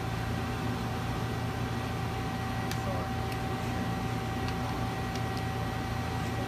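2007 Mazak Nexus QTN 250MSY CNC lathe running with a steady hum and a high, even whine; the whine cuts off near the end.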